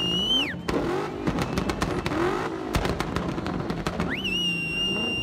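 A drift car sliding in circles: its tyres squeal in a long, steady high tone that cuts off about half a second in. The engine then revs up and down with a run of sharp cracks, and the tyre squeal starts again about four seconds in.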